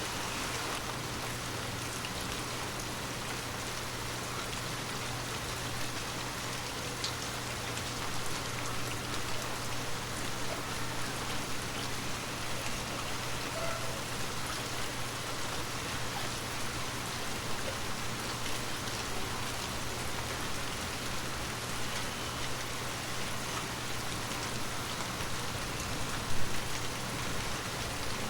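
Water drops tapping on glass: a steady rain-like hiss with scattered small taps, and one louder tap near the end.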